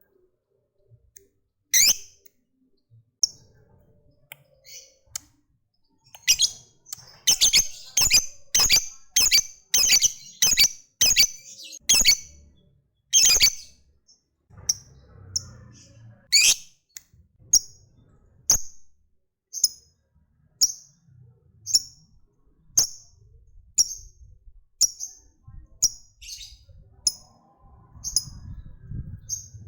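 Lovebird giving short, sharp, high chirps, the clipped 'ngetik' call: a few scattered chirps, then a quick run of about two a second from about six seconds in, then single chirps evenly spaced about once a second.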